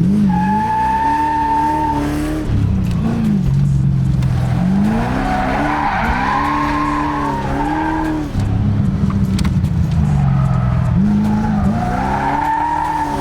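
Car engine revved hard through a timed run, its pitch climbing and dropping again and again with throttle and gear changes. The tyres squeal in long held tones at the start and again near the end as the car slides through the corners.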